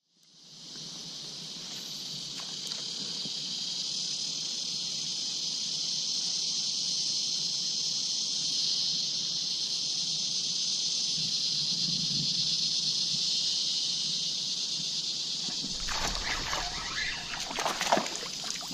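Steady high-pitched drone of insects in the creek-side bush. About sixteen seconds in it gives way to splashing and knocks as a small barramundi is hooked and fights at the surface.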